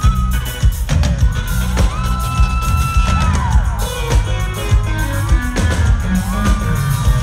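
Live rock band playing loudly: a drum kit keeping a steady beat under electric guitar and long held notes that bend in pitch.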